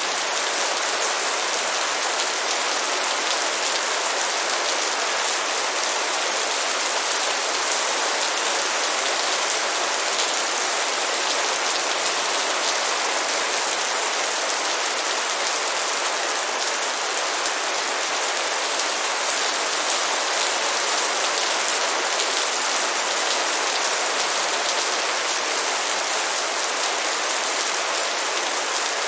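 Steady light rain falling: an even patter of many fine drops, with no thunder or single loud strikes.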